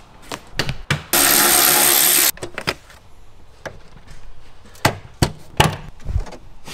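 Car interior trim being pried off with a plastic trim tool: scattered sharp knocks and clicks of panels and clips coming loose, most of them near the end. About a second in, a loud, even hiss starts suddenly and cuts off just over a second later.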